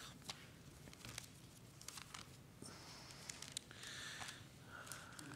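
Faint rustling and soft ticks of thin Bible pages being turned by hand.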